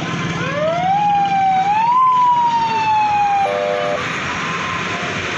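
A vehicle's siren sounding in the street: one wailing tone rises in two steps for about two seconds, then slowly falls, and ends in a short blast of a chord-like multi-tone horn about three and a half seconds in. Steady street din underneath.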